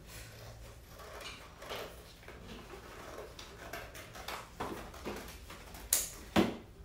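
Scissors cutting through cardboard: a run of irregular snips and crunches, with two louder sharp clicks about six seconds in.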